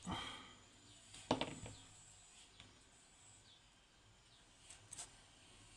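A few sharp clicks and taps of small metal lock parts and tools, the loudest about a second in, with faint bird chirps in the background.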